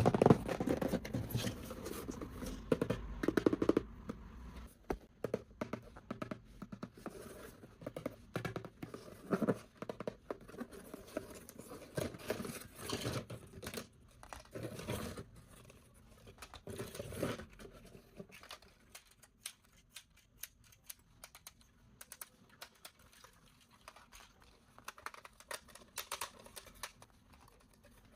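Toy car packaging being handled and opened by hand: rustling, tearing and crinkling with many small clicks and taps, busier in the first half and sparser later.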